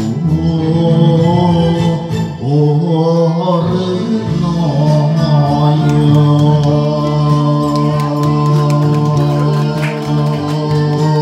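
A man sings an enka ballad into a microphone over a karaoke backing track, holding long drawn-out notes.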